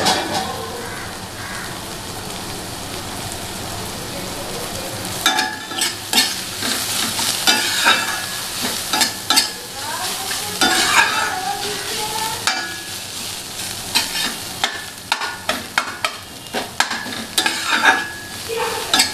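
Chopped onions and green chillies sizzling in oil in a stainless steel frying pan. From about five seconds in, a metal spatula stirs and scrapes against the pan in quick, irregular strokes over the steady sizzle.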